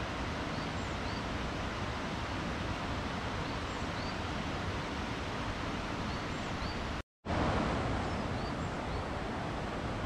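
Steady rush of flowing water, with a few faint, short bird chirps above it. The sound cuts out completely for a split second about seven seconds in, then resumes slightly louder.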